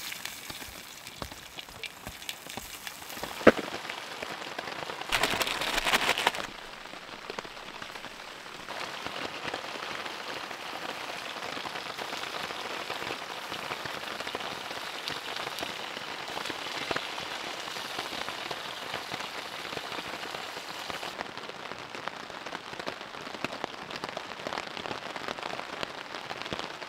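Steady rain falling, an even patter throughout. A sharp click comes about three and a half seconds in, and a louder hiss lasts about a second and a half from about five seconds in.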